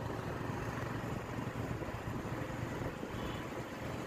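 Steady traffic and road noise recorded from a moving vehicle, with a heavy low rumble.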